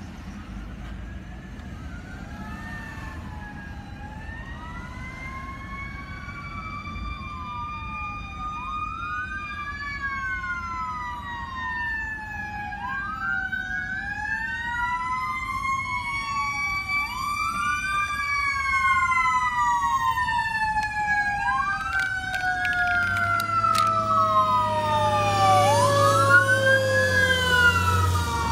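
Several emergency-vehicle sirens wailing together, each rising and falling and overlapping, growing steadily louder as a fire truck draws near. In the last few seconds a long, slowly falling siren tone and a deep engine rumble come in as the truck passes close.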